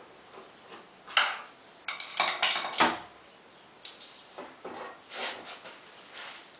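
Metal parts and tools being handled, in a series of clinks, knocks and scrapes. The sharpest knock comes about a second in and a busy cluster follows between two and three seconds in.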